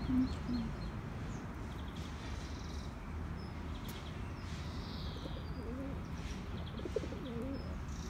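A pigeon cooing: two short low notes right at the start, then a run of wavering coos in the second half. Small birds chirp faintly above it over a steady low background rumble.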